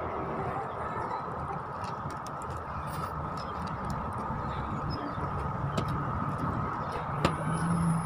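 Eating with the hands: chewing, and fingers mixing rice and chilli shrimp, heard as scattered soft clicks with one sharper click near the end, over a steady background noise.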